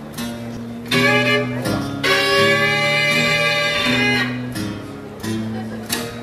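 Bluegrass band playing: acoustic guitar, mandolin and upright double bass, with a fiddle taking the lead in long held notes through the middle.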